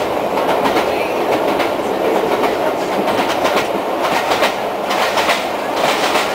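A railway passenger coach running along the track, heard from inside the carriage as a steady rumble. Repeated clicks of the wheels over rail joints come more often in the second half.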